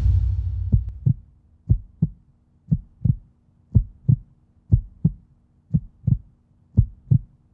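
Heartbeat sound effect: paired lub-dub thumps about once a second. A deep booming hit fades out during the first second.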